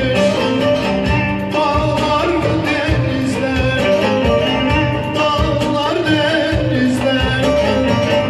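A man singing into a microphone over band music, amplified through a hall's loudspeakers.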